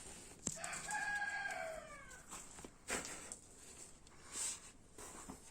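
A rooster crowing once: a single drawn-out call of about a second and a half that drops in pitch at the end. A few short clicks of tools or parts being handled come around it.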